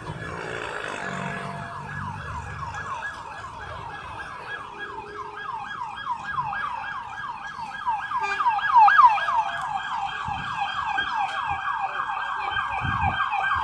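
Police car siren on a rapid yelp: a quick falling wail repeating about four to five times a second, growing louder about eight seconds in.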